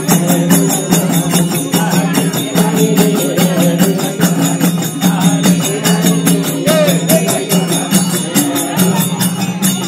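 Live Nepali bhajan music: a group singing a devotional song over sustained low notes, with small hand cymbals keeping a fast, even beat.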